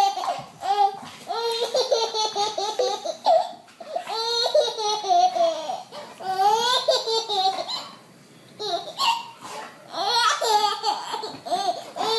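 A baby laughing in several bouts of high-pitched, pulsing laughter, with short pauses between them.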